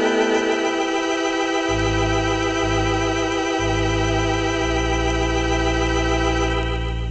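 Conn Minuet 541 vacuum-tube spinet organ playing a sustained chord with a slight waver. Low bass notes come in under it a little under two seconds in and change pitch three times. The upper chord thins out near the end.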